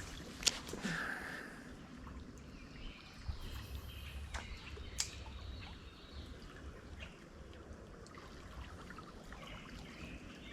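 Small creek water trickling and flowing steadily, with a couple of sharp clicks.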